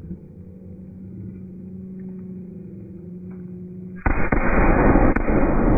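A firework going off: after a low steady hum, a sudden loud blast about four seconds in, followed by a long loud roar with two sharp cracks in it.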